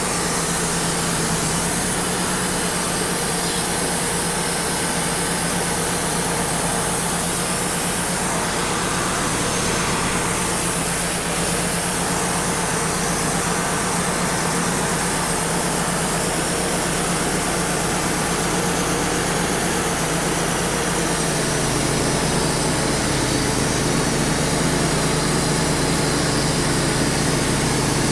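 Wood-Mizer LT35 portable sawmill running steadily, its engine drone under a dense, even rush of noise from the band saw and dust blower. The engine note shifts lower and fuller about two-thirds of the way through.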